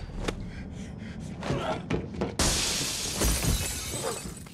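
A few sharp hits, then about halfway through a sudden crash of shattering glass that fades away over a second or so, as fight sound effects.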